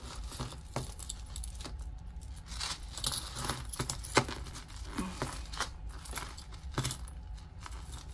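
Metal costume jewelry being handled: gold-tone chains and pendants jingling and clinking against each other, in many small irregular clinks with one sharper clack about four seconds in.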